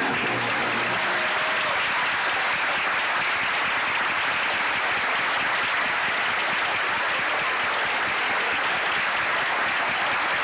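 Audience applauding steadily. The last notes of the waltz music die away about a second in.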